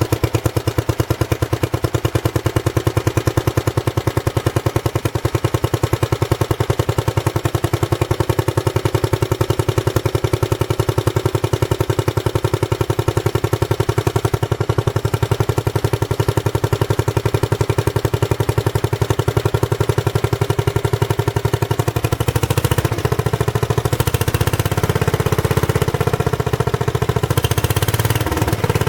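Briggs & Stratton 23D 9 hp single-cylinder engine of a Magna Trac garden tractor running with a steady, rapid firing beat, now that its stuck, gummed carburetor float needle has been cleaned. The running note changes and grows fuller about three-quarters of the way through.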